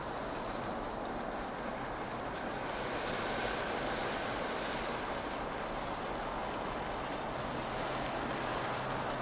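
Minitrains Brigadelok 009 narrow-gauge model locomotive and its wagons running along the track: a steady rolling rattle from wheels and mechanism, getting a little louder about three seconds in as the train comes closer.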